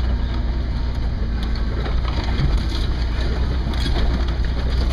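Ford Bronco crawling over a rough dirt track, heard from inside the cab: a steady low engine and drivetrain rumble with the tyres crunching over dirt, sticks and leaves. Branches scrape along the truck near the end.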